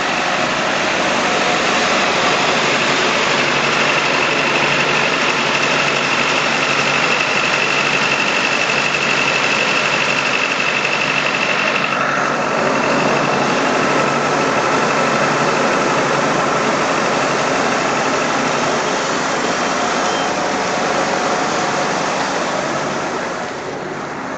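Steady, loud hiss and rush from a standing Nilgiri Mountain Railway steam locomotive, with a faint high whistling tone in it that weakens about halfway through; the sound drops off near the end.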